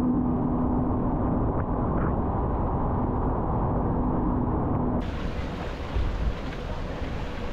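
Boat engine droning low and steady under wind and water noise. It sounds muffled for the first five seconds, then opens out into fuller wind and spray noise.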